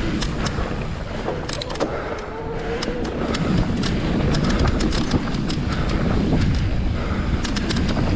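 Mountain bike ridden fast down a dirt forest trail: wind buffeting the microphone and the tyres rumbling over the ground, with frequent sharp clicks and rattles.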